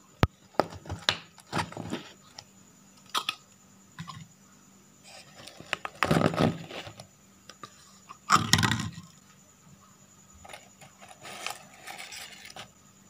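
Hands handling clear plastic tubs of rolled crispy Thai crepes (khanom bueang): a series of sharp clicks and knocks from the plastic tubs and lids, with scrapes and crackles as the crisp rolls are moved. The loudest is about eight and a half seconds in.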